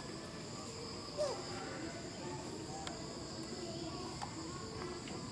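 Steady high-pitched insect chorus, two unbroken droning tones throughout, with a couple of faint short falling calls about a second and three seconds in.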